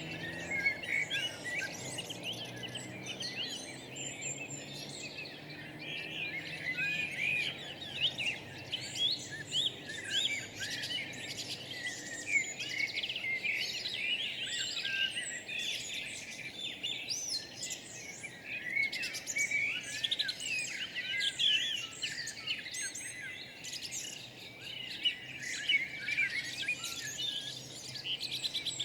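Several wild birds singing and calling at once: a dense, continuous chorus of overlapping chirps, trills and short whistles, over a faint, steady low hum.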